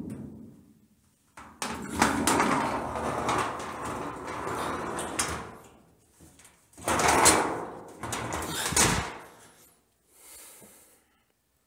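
Removable tray being slid into the bottom of a steel dog crate, scraping along the cage frame in two long pushes: the first lasts about four seconds and the second about two.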